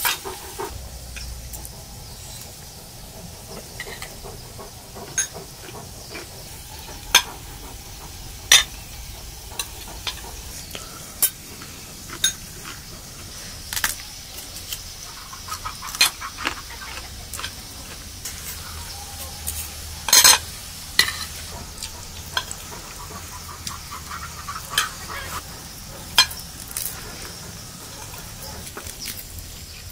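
Metal utensils clinking and scraping against cookware in irregular sharp clicks, the loudest cluster about two-thirds of the way through, over a steady faint hiss.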